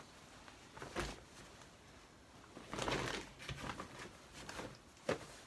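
Denim clothing being handled: a denim jacket rustles as it is folded and set down on a pile of jeans, with a soft knock about a second in and a longer rustle around the middle.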